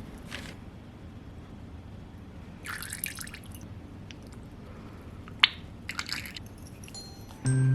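Quiet kitchen sounds: two brief liquid-like splashes, about three and six seconds in, with a sharp click between them. Soft background music comes back near the end.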